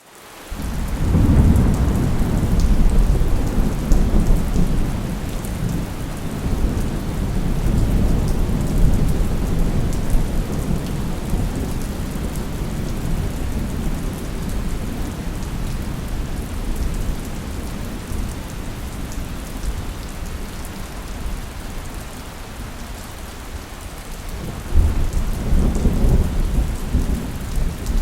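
Steady rain falling through a thunderstorm, with thunder rumbling low for the first several seconds and another rumble breaking in suddenly near the end.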